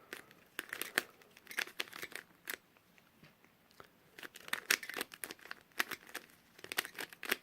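A ShengShou Wind 3x3 speed cube being turned during a solve: irregular runs of quick, light plastic clicks as the layers are turned.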